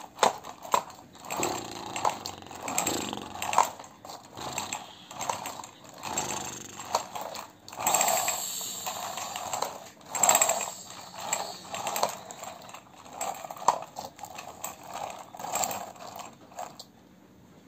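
Plastic toy motorcycle pushed back and forth by hand across a hard floor, its wheels rolling and scraping in repeated short bursts with each push, stopping near the end.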